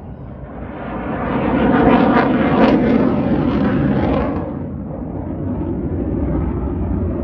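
Fighter jet passing overhead. The jet noise swells about a second in, is loudest for a couple of seconds, then eases to a steadier, slightly lower rush.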